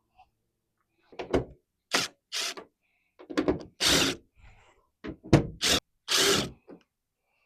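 Tool noise from working the tailgate's screws with a T30 Torx bit: about ten short, separate bursts over several seconds.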